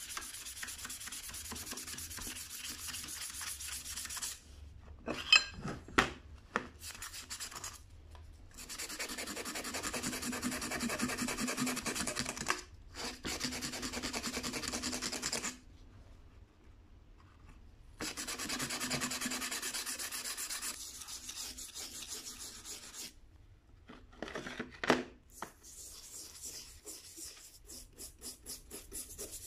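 A rusty steel hand plane blade being sanded by hand with a small piece of abrasive paper: long runs of rapid scraping strokes of grit on metal, stopping and starting several times, with a few sharp clicks about five seconds in and again near 25 seconds. Near the end a small brush scrubs the wet chipbreaker in quick even strokes.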